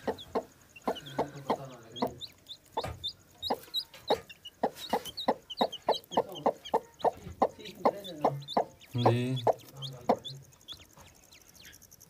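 Broody hen clucking steadily to her newly hatched chicks, about three short clucks a second, while the chicks peep in short, high, falling notes. The clucking dies away near the end.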